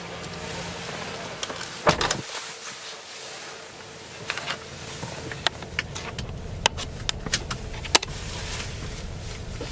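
GMC pickup's driver door shut about two seconds in, then a few sharp clicks as the seatbelt is pulled across and latched.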